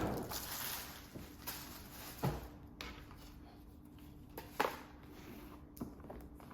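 Packaging being handled: a rustle at the start that fades within about a second, then a few short, scattered rustles and taps over a faint steady hum.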